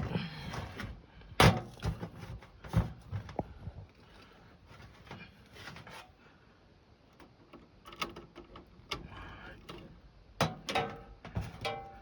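Handling noise while thermostat wires are jumpered at the HVAC unit's low-voltage terminals: scattered clicks and knocks, a few of them sharper, about a second and a half in, near three seconds and near ten and a half seconds.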